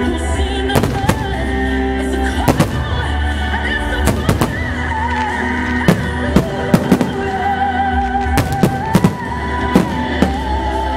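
Aerial firework shells exploding in a string of sharp bangs, more than a dozen spread through, over loud music with long held notes.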